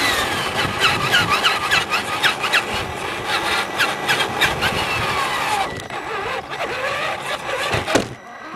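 Electric RC truck (Traxxas Telluride) driving on asphalt: its motor and gears whine, the pitch rising and falling with throttle, over tyre rumble and rapid rattling ticks. A sharp click sounds near the end, and the noise drops after it.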